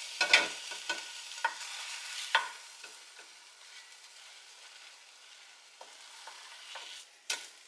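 Steak sizzling in a non-stick frying pan, with a wooden spatula scraping and knocking against the pan as it moves the meat. The sizzle is strongest in the first couple of seconds and then dies down to a faint hiss. A sharp click comes near the end.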